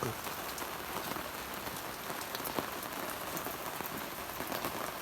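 Heavy rain falling, a steady hiss with scattered sharp drop ticks.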